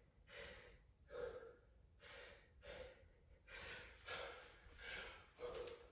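A man's heavy, rapid breathing, faint and even, about one breath every three quarters of a second: he is winded after an intense workout.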